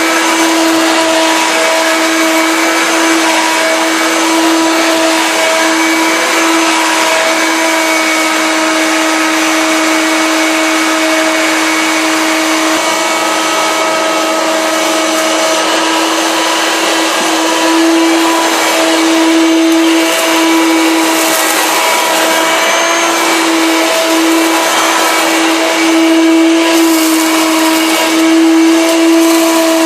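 Hoover Turbo Power Junior U1222 vacuum cleaner running, picking up dust, paper, cat fur and cat litter, with a steady motor whine over a rushing hiss. The hiss grows louder near the end.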